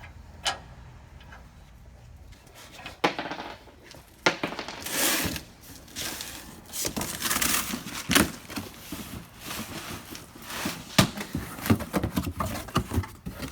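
Scattered metal knocks and clanks with bouts of scraping and rattling, from hand work on a truck's air-brake shoes and their springs and hardware.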